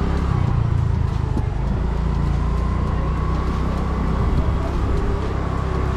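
Steady low rumble of wind and road noise from riding a two-wheeler through town streets, with a faint steady engine hum.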